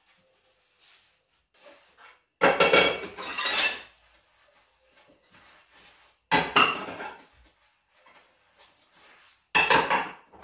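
Kitchenware clattering on a countertop: three loud clatters about a second long each, with faint knocks and taps between them.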